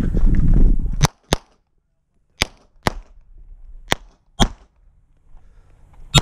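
Glock 17 pistol firing 9mm rounds in quick pairs, each pair a third to half a second apart, three pairs and then a single shot near the end. A loud low rumble comes first, in the second before the shooting starts.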